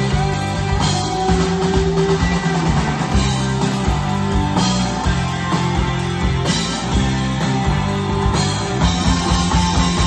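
Live rock band playing an instrumental passage with no singing: electric guitars over bass guitar and drum kit.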